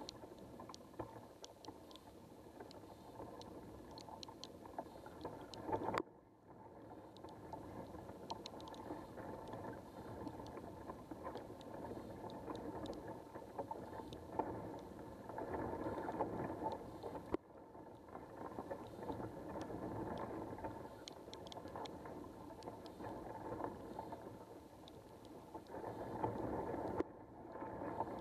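Underwater sound picked up by a camera submerged in a canal: a steady muffled rushing of water with scattered small ticks. It breaks off abruptly and starts again about six seconds in, around seventeen seconds, and near the end.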